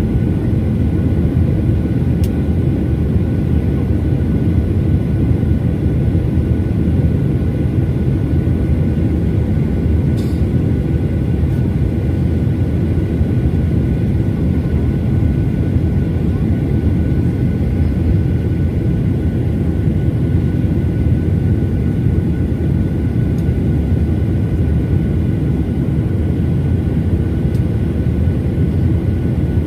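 Steady engine and airflow noise of a Boeing 737 airliner in flight, a constant low rumble with faint steady whine tones over it, as heard from the passenger cabin.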